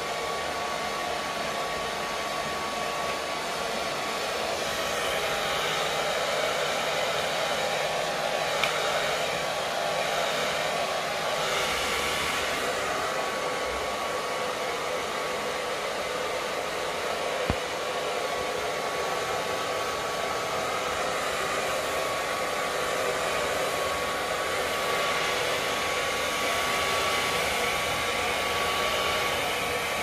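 Hair dryer running steadily: an even rush of blown air with a thin, constant whine, and two faint clicks partway through.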